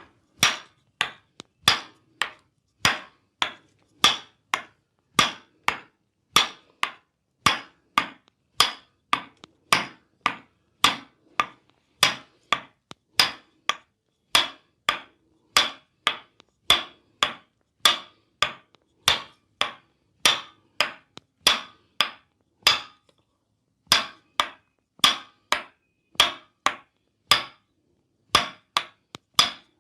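Percussive massage strikes, sharp slaps landing evenly about twice a second, with a short pause about 23 seconds in.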